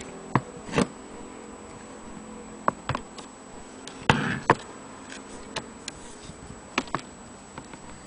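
Irregular clicks and knocks from close handling of an antique Willcox & Gibbs sewing machine's metal underside, with a louder scrape about four seconds in.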